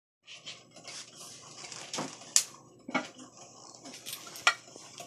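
Sharp clinks of glass and metal from a vacuum (siphon) coffee maker being handled, four distinct strikes with light clatter between them.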